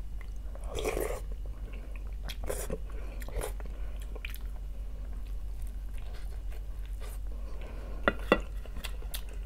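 Close-up mouth sounds of a person eating fish soup: irregular wet chewing smacks and small clicks as he chews fish and bread, a stronger smack about a second in and two sharp clicks near the end.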